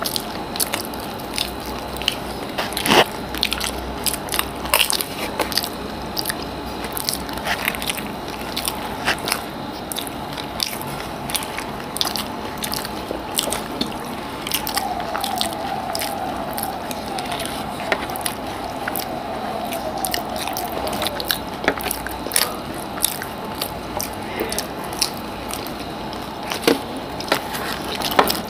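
Close-miked eating of dahi fuchka: the fried puri shells filled with yogurt crunching and being chewed wetly, with many short sharp crackles and mouth clicks.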